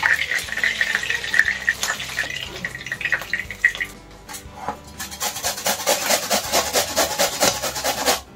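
Fish pieces frying in hot oil in a kadai, a steady sizzle. After a short lull about four seconds in, a red onion is rubbed quickly up and down a steel box grater, a rapid rasping of about five strokes a second.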